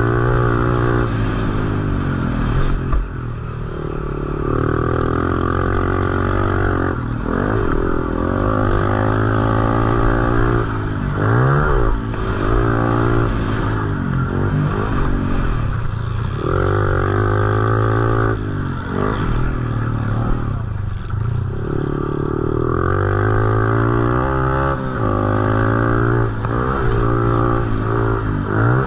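Honda CRF110 pit bike's small single-cylinder four-stroke engine at race pace, revving up and dropping back again and again as the throttle is opened and closed and the gears change. Some clatter and scraping underneath.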